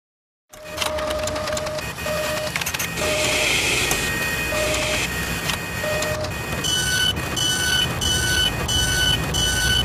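Machine sound effects starting about half a second in: a steady mechanical whirr with many clicks and short electronic beeps. From about seven seconds in, a higher two-tone beep repeats about twice a second, like a printer or plotter at work.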